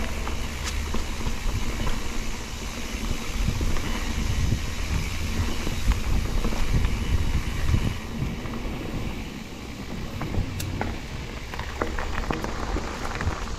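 Mountain bike rolling fast down a dirt trail, heard from a handlebar camera: steady tyre and trail rumble with wind buffeting the microphone, and now and then sharp clicks and knocks from the bike over bumps.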